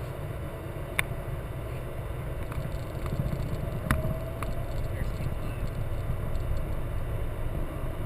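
Low, steady aircraft rumble that grows a little louder after about three seconds, with two sharp clicks about a second and four seconds in.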